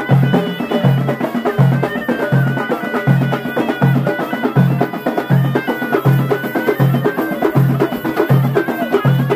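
Amazigh ghaita (reed shawm) playing a wavering, ornamented melody over traditional drums (tbel and frame drum). A steady low drum beat falls a little faster than once a second, played live without amplification.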